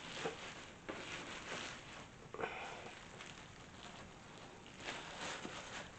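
Cardboard box and packing material of a microwave being handled, with irregular rustling, crinkling and scraping.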